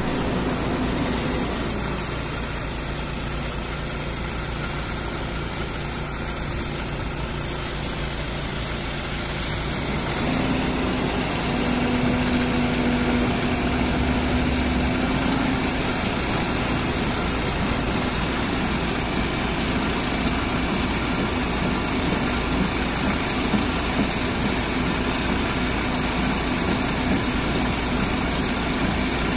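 High-pressure water jet spraying onto an excavator's steel bucket and tracks, with an engine running steadily underneath. The sound changes character about ten seconds in.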